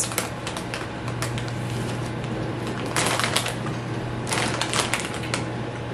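Crinkly plastic snack bag rustling in bursts as a hand reaches in for corn and rice puffs, over a low steady hum.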